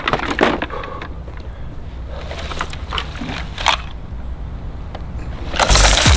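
A few light rustles and scuffs, then near the end a loud, sudden hiss of pressurized water jets from Super Soaker water blasters firing.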